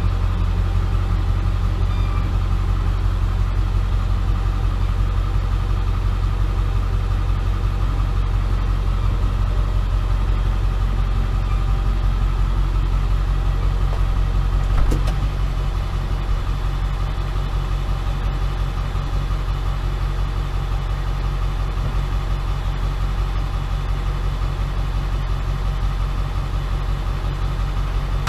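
Pickup truck engine idling steadily in reverse as the truck creeps back under a truck camper. A single sharp click about halfway through.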